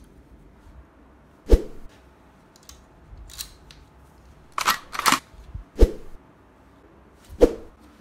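Scattered clicks and knocks of a plastic toy web shooter being handled and fitted on a wrist: about half a dozen sharp clicks and a few dull thumps, spread out with quiet gaps between them.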